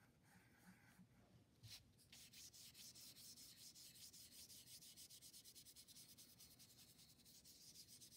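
Paintbrush scrubbing yellow paint onto paper in quick repeated back-and-forth strokes, a faint rhythmic brushing scratch. It starts about two seconds in, just after a light knock.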